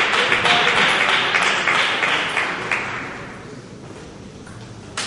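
Audience applause with many separate hand claps, dying away after about three seconds. Near the end, one sharp ping of a table tennis ball.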